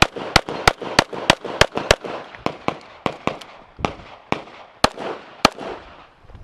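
Rapid string of handgun shots fired in quick succession, about three a second and some sixteen in all, with a couple of short pauses between groups, ending about five and a half seconds in.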